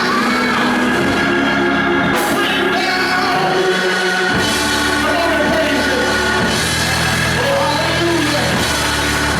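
Church worship band playing with singing: sustained chords over a steady bass, and a voice carrying the melody.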